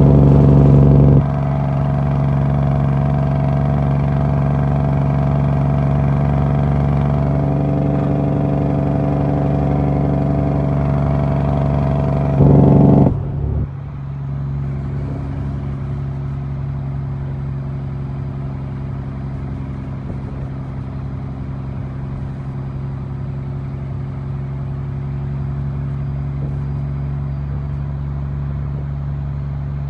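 Western Star truck's diesel engine running on the road, heard from inside the cab: a steady drone, with a louder surge briefly at the start and again just before 13 seconds. About 13 seconds in the sound drops and grows smoother, the hiss above it falling away.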